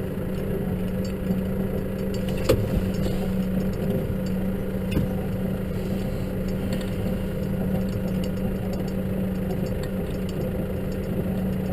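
Case tractor's diesel engine running steadily while snow ploughing, with a single sharp knock about two and a half seconds in.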